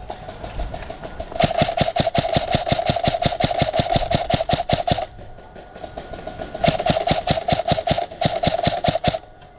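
Airsoft electric gun (AEG) firing two long full-auto bursts, a rapid even clatter of shots over the whine of its gearbox motor.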